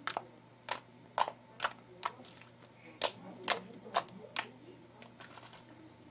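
Homemade slime clicking and popping as it is pressed and folded by hand, its trapped air bubbles bursting in a series of sharp snaps, about two a second, with a quick cluster near the end.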